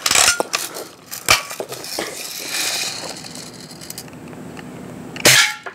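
Daisy Red Ryder spring-powered BB gun being handled, with a few sharp clicks and knocks in the first two seconds, then one loud, sharp shot near the end.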